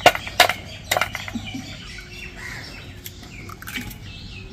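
Three sharp taps in the first second as an egg is knocked against the rim of a stainless steel bowl to crack it, then birds chirping faintly in the background.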